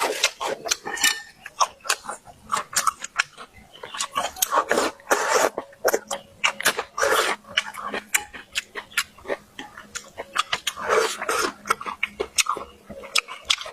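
Close-miked chewing and crunching of fried small yellow croaker: many sharp, irregular crunches mixed with wet mouth sounds.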